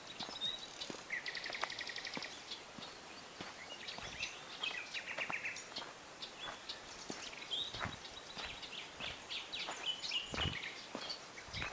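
Several wild birds calling and chirping, with a rapid trill of quickly repeated notes about a second in and another about five seconds in. Occasional sharp clicks sound through it.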